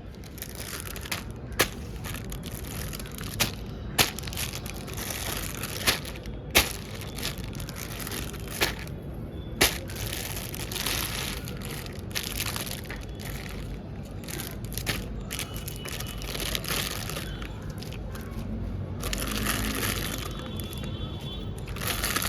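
Plastic packaging of mini balloons being handled and opened: continuous crinkling and rustling, with sharp snaps every second or two through the first ten seconds.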